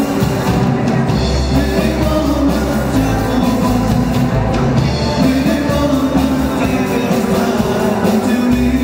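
Live rock band playing: electric guitars, electric bass and drum kit, loud and continuous.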